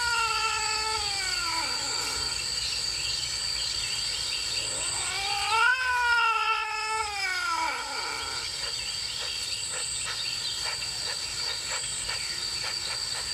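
Cats yowling in a territorial confrontation: long, drawn-out caterwauls that rise and then fall in pitch, one at the start and a louder one in the middle. Crickets chirp steadily underneath.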